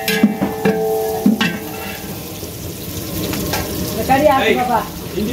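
Sliced onions and bay leaves sizzling in hot oil in a large aluminium biryani pot, the first frying stage of the biryani, with a long metal ladle knocking and scraping against the pot as it stirs, the knocks clustered in the first second and a half.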